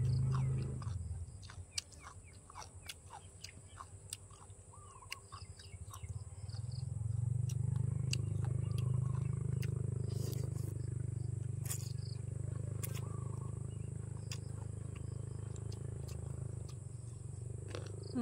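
Close-miked chewing and wet mouth clicks of someone eating a mouthful of spicy green-bean salad with rice noodles and crispy pork. A low rumbling chew fades about a second in, then returns from about six seconds on, with sharp crunchy clicks scattered through it.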